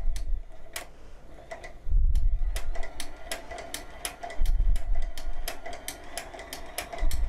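Kettel linking machine chain-stitching knitted pieces together: a fast irregular ticking of its needle and points, with a low rumble swelling about every two and a half seconds.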